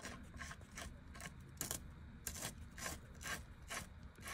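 Soft, irregular scrapes and clicks, about two or three a second, as a billet 6AN transmission cooler-line fitting is turned by hand into the threaded port of the transmission case, metal threads rubbing against metal.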